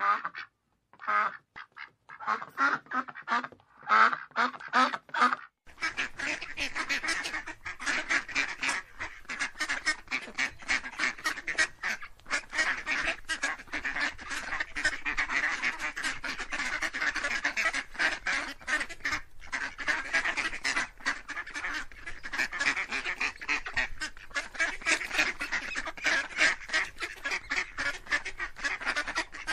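A large flock of wild geese calling all at once. For the first few seconds there are separate honking calls with short gaps; from about six seconds in it becomes a dense, unbroken clamor of many birds.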